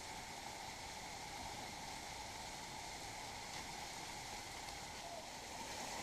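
Steady hiss of a thin trickle of water falling down a tall rock-face waterfall running low after a dry summer.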